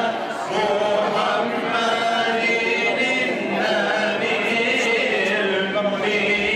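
Mosque congregation chanting together, a slow melodic devotional chant sung by many voices.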